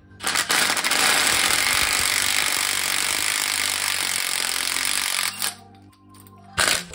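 Cordless impact wrench hammering on the crankshaft harmonic balancer bolt of an LS1 V8 in one long run of about five seconds, with a second short burst near the end.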